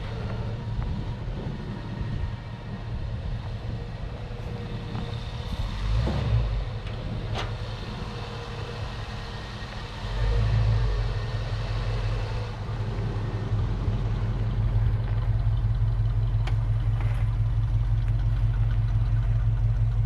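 An engine idling with a low, even rumble that gets louder about halfway through, with a few sharp metallic knocks.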